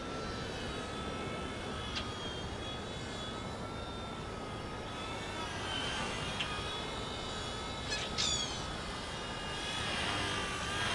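Hubsan X4 H107D micro quadcopter's motors and propellers whining in flight, the pitch wavering up and down as the throttle changes, with a couple of brief clicks.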